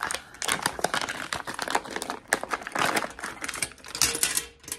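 Paper pouch crinkling and rustling as it is pulled open and its contents are handled, a rapid run of crackles and clicks.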